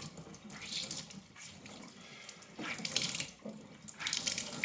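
Tap water running into a sink and over a microfiber cloth being soaked, the splashing surging and easing irregularly.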